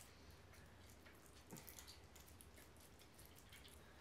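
Near silence: room tone with a steady low hum and a few faint small clicks.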